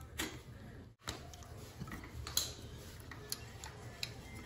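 Scattered small clicks and handling noises of gloved hands working a plastic wiring connector tab loose at an electric scooter's handlebar stem.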